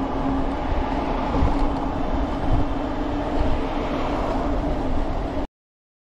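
Riding noise from an e-bike at speed: wind buffeting the microphone and road noise, with a faint steady hum underneath. It cuts off suddenly about five and a half seconds in.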